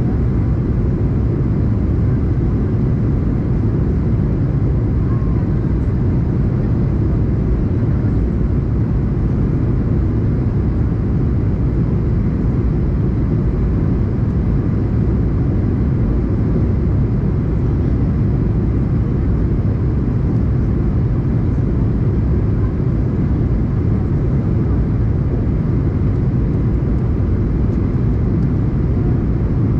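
Airbus A220-300 cabin noise in flight: a steady low rumble of its Pratt & Whitney PW1500G geared turbofans and the airflow past the fuselage, heard inside the cabin.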